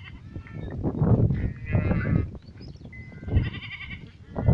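Goats bleating: two quavering bleats, one about one and a half seconds in and another a little after three seconds, over low rumbling noise.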